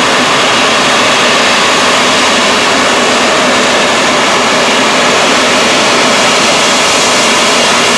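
Jet turbine engines of jet-powered drag trucks running steadily, a loud even rush of noise.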